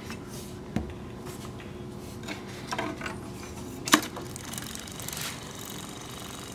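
Small motor of a battery-powered fluttering butterfly cat toy humming steadily, with a few knocks and taps on a cardboard cat house as kittens paw at it. The sharpest, loudest tap comes about four seconds in.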